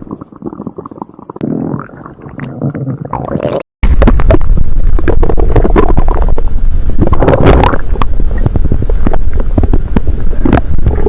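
Human stomach growling and gurgling, heard in two clips. The first is a muffled, low gurgling; after a brief break about four seconds in, a much louder rumbling takes over.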